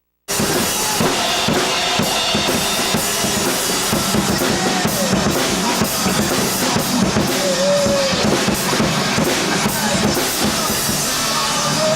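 Rock music led by a drum kit played hard, with bass drum and snare hits throughout and a few bent notes on top. It starts abruptly just after the beginning.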